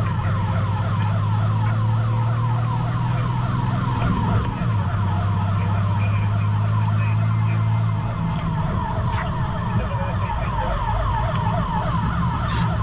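Fire engine's electronic siren on a fast yelp: rapid rising sweeps, about four a second, over the steady low drone of the truck's engine.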